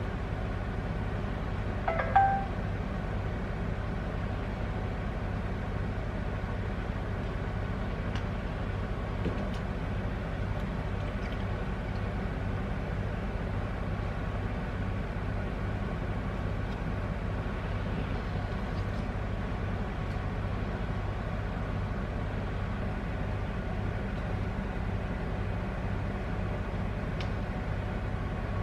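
Steady machine hum of a motor running evenly, with one short metallic ping about two seconds in.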